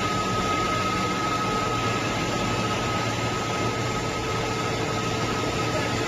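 PET strap production line machinery running steadily: an even mechanical noise with a constant high-pitched whine and a low hum underneath.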